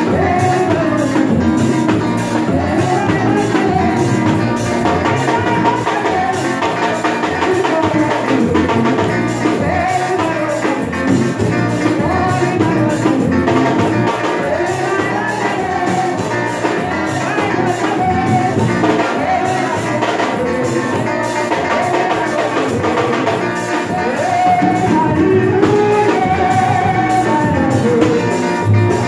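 Gospel song with singing over a live band: drum kit keeping a steady beat, with guitar.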